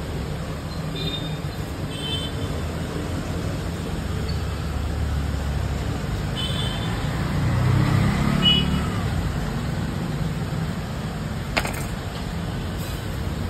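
Steady low street-traffic rumble that swells about two-thirds of the way through as a vehicle passes. A few faint high chirps sound over it, and one sharp tap comes near the end.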